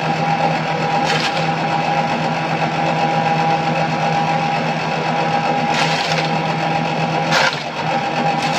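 Small forage chopper machine running steadily with a constant hum, with a few brief harsher bursts about a second in and near the end as material is fed into the cutting blades.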